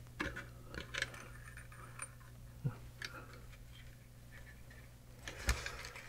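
Faint, scattered clicks and rustles of fingers handling the drive belt, wires and metal chassis of a Tandon 5¼-inch floppy drive, with a sharper click near the middle and a louder one near the end, over a steady low hum.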